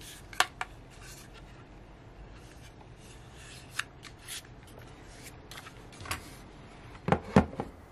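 Quiet handling noise of a plastic neck fan being turned over in the hands: soft rubbing with scattered small clicks and taps, and a quick cluster of clicks near the end.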